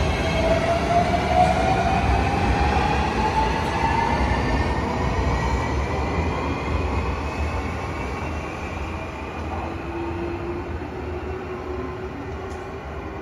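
JR Shikoku 7200 series electric train accelerating away from a platform: the whine of its VVVF inverter traction motors rises in pitch over the first few seconds, over wheel and rail noise, and the whole sound fades as the train draws away.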